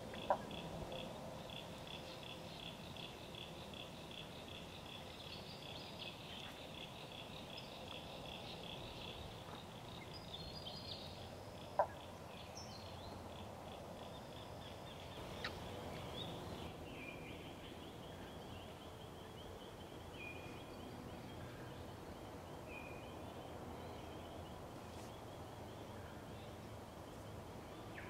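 Faint bushland ambience: a high chirping that pulses a few times a second is plain for about the first nine seconds and then carries on more faintly, with a few short whistled bird notes and two sharp clicks.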